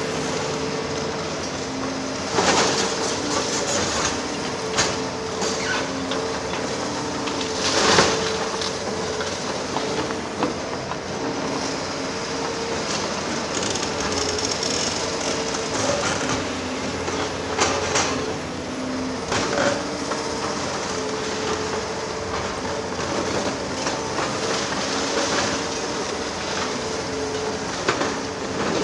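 Liebherr R 946 excavator's diesel engine running steadily, with scattered bangs and scrapes of demolition work.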